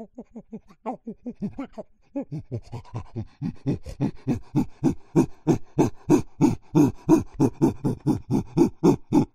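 Chimpanzee pant-hooting: a rhythmic series of panted in-and-out calls, a short run, a brief pause, then a longer run at about four a second that grows steadily louder, the build-up of a pant-hoot, cutting off suddenly at the end.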